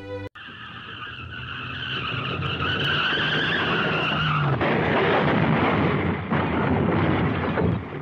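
Car tyres screeching in a long skid, growing louder. After about four and a half seconds the squeal gives way to a loud, rough noise that runs on until just before the end.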